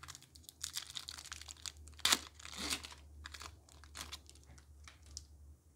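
Foil wrapper of a Pokémon booster pack being torn open and crinkled by hand, a run of irregular crackles with the sharpest about two seconds in, fading out near the end.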